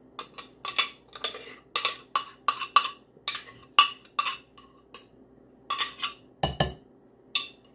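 Metal spoon knocking and scraping against a blender jar as thick blended paste is scraped out into a glass bowl. The sharp, irregular taps come about three a second, pause briefly just before halfway, then resume with a heavier, deeper thump near the end.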